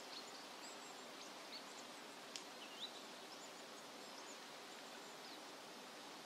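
Faint outdoor ambience: a steady hiss of background noise with scattered short, high bird chirps, two of them slightly louder about two and a half seconds in.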